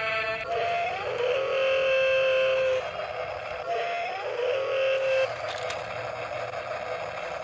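Small electric motors of a toy remote-control excavator whining twice, each time rising in pitch and then holding steady, as the tipped-over machine pushes itself back upright; after that a rougher, steady whir.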